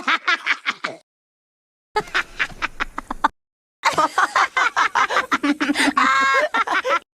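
Cartoon character Peridot laughing in three separate clips with dead silence between them: quick pulsed cackles, the last and longest rising into a high held squeal near the end.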